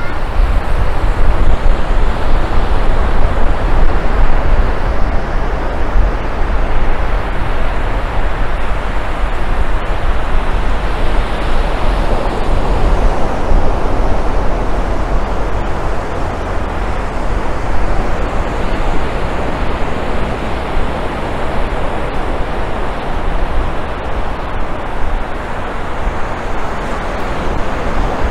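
Steady wash of surf with wind buffeting the microphone in a low, uneven rumble.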